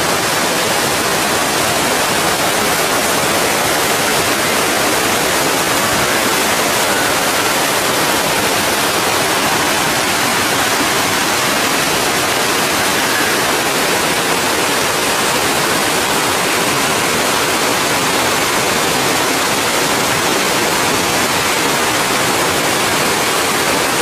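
Steady rush of fast-flowing creek water cascading over rocks, an even, unbroken noise.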